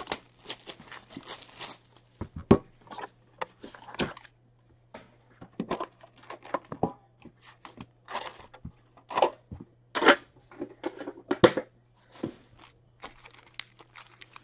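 Plastic wrap being torn and crinkled off a metal trading-card tin, with a few sharp clicks and knocks as the tin is handled and opened, then foil card packs rustling.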